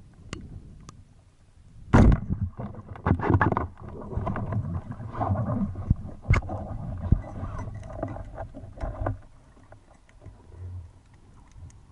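Underwater water noise and knocks picked up by a camera housing on a speargun. A sharp, loud knock comes about two seconds in, followed by a stretch of rushing, sloshing water and clicks that dies down about nine seconds in, as the diver swims up toward the surface.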